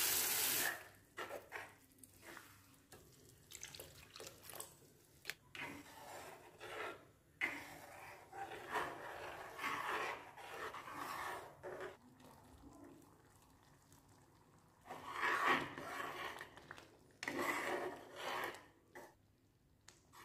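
Spoon stirring thick boiled lentils (dal) in a metal pan, wet squelching and scraping in irregular bursts. A frying sizzle from the masala cuts off within the first second as the lentils cover it.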